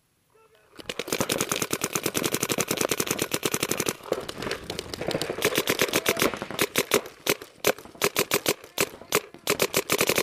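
Paintball markers firing in rapid fire: a dense stream of sharp pops starting about a second in, many shots a second, then breaking into shorter strings of shots.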